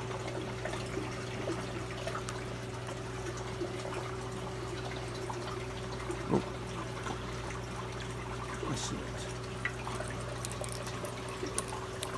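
Reef aquarium water trickling and flowing over the steady low hum of the tank's pump, with scattered faint clicks and scrapes as a razor knife works into a piece of live rock to cut out an Aiptasia anemone.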